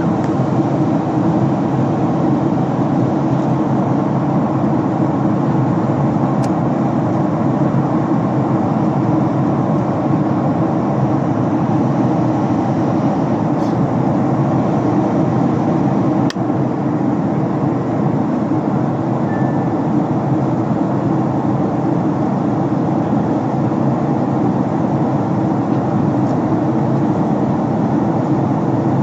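Steady cabin noise inside a Boeing 767-300 airliner: a constant low rumble of engines and air that does not change in level or pitch.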